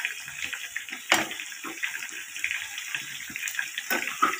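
Pieces of meat deep-frying in a pot of hot oil: a steady sizzle with sharp crackling pops, the loudest about a second in.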